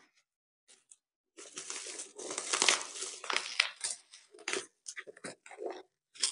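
Plastic mailer and bubble wrap of a parcel crinkling and tearing as small hands pull it open. About a second and a half in, a dense stretch of crinkling starts, then it thins to scattered crackles.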